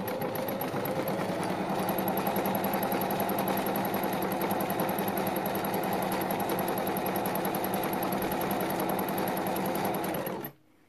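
Pfaff domestic electric sewing machine sewing a zigzag stitch along a raw fabric edge to neaten it, with no backstitching. It speeds up over the first second or two, runs at a steady stitching rhythm, then stops abruptly shortly before the end.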